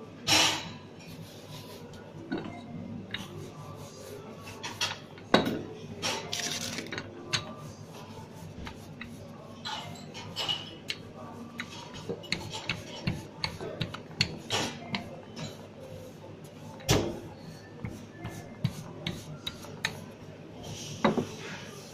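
Pizza dough being pressed, stretched and rolled out by hand and with a wooden rolling pin on a floured granite counter: irregular taps, knocks and rubbing, with a few louder knocks.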